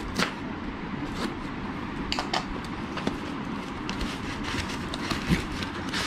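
Paper padded mailer being handled and pulled open, with scattered sharp crackles and rustles of the paper over a steady background rumble.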